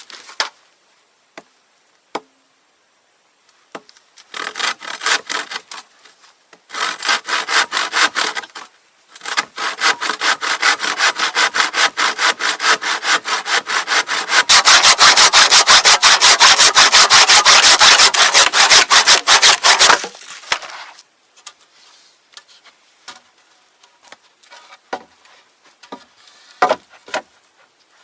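Hand saw cutting wood in quick back-and-forth strokes. It starts in short spells, then saws steadily for about ten seconds, growing louder partway through, before stopping suddenly. A few light knocks and rustles follow.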